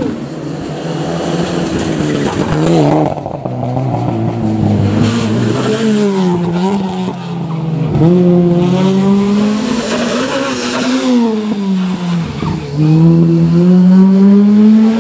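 Rally car engines at full attack on a closed stage. The engine note climbs hard and drops sharply several times with gear changes and braking.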